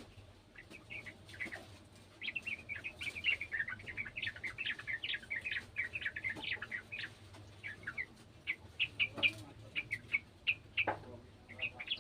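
Yellow-vented bulbul singing a fast, chattering run of short bubbling notes with hardly a break, sparser for the first couple of seconds.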